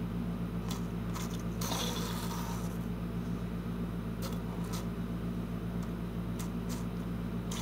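Wind-up Thomas the Tank Engine toy running on its puzzle track: a steady low whir from its wind-up motor, with scattered small clicks and scrapes as a hand guides the plastic engine around the track.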